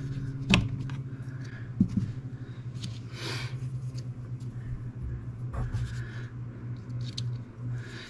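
A few light clicks and handling noises from the plastic parts of a Minn Kota Ultrex trolling-motor foot pedal being fitted back together, with a short hiss about three seconds in, over a steady low hum.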